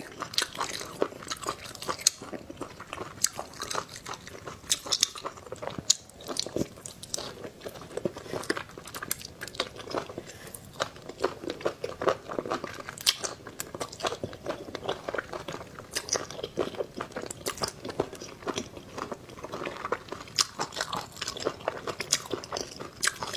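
A person biting and chewing cooked octopus in spicy sauce close to a clip-on microphone: wet mouth clicks and smacks coming irregularly, several a second.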